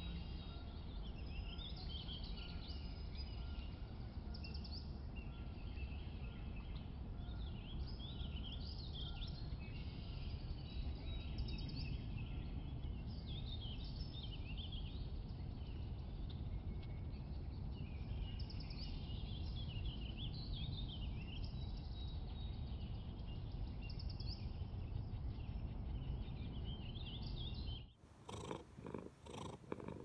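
Outdoor ambience of small birds chirping over a steady low rumble. About two seconds before the end it cuts to a domestic cat purring close up, in an even rhythm.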